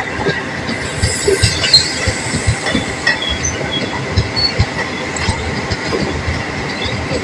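Passenger train coaches running along the track at close range: a continuous rattle and rumble of wheels over the rails, with a few short, high wheel squeals.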